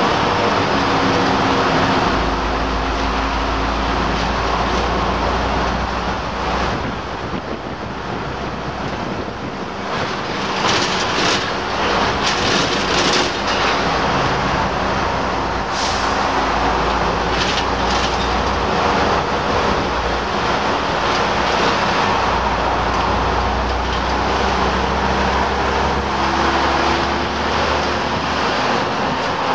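Leyland Olympian double-decker bus under way, heard from inside: its diesel engine running with road noise. The engine note drops near the start and climbs again near the end. Short rattles and knocks come in the middle.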